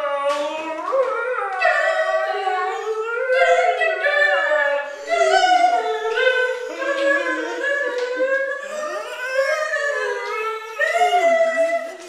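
A boy's voice wailing without words in a high, sing-song cry, the pitch sliding up and down, held almost without a break apart from a few short gaps.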